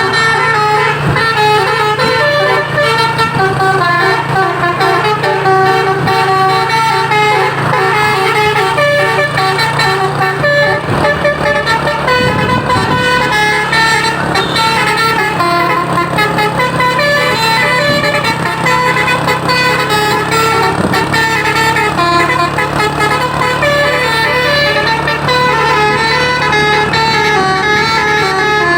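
A truck's Basuri telolet horn, a multi-tone musical horn, playing a tune of short stepping notes without a break, over a steady engine hum.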